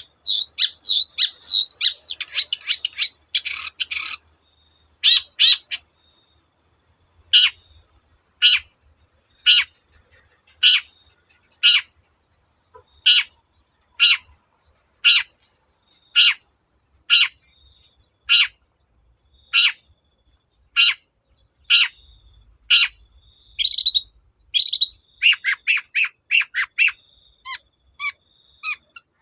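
Long-tailed shrike singing: a quick warbling chatter, then a long run of single sharp downslurred notes about one a second, breaking into rapid chatter again near the end.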